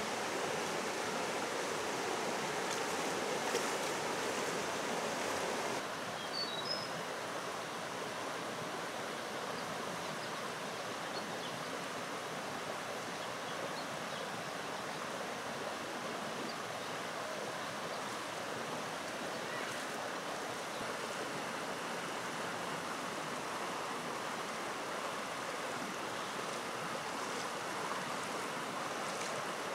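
Shallow rocky stream running: a steady rush of water over stones, dropping a little in level about six seconds in.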